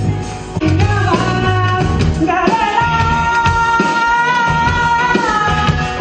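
Live band music with electric guitar and bass guitar. A long held lead note bends and sustains through the middle, over a pulsing bass line.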